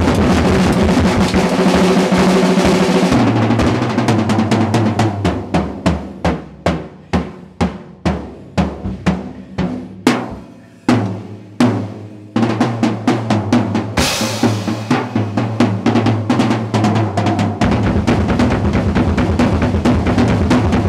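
Acoustic drum kit played solo: a dense run of tom and cymbal hits, then single strikes that slow and spread out over several seconds, before fast rolls pick up again about twelve seconds in, with a cymbal crash soon after.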